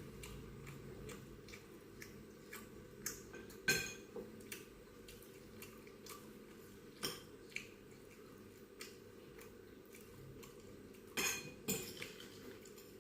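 Eating utensils clinking and scraping against a plate in a series of scattered short clicks, the loudest about four seconds in and a pair near the end.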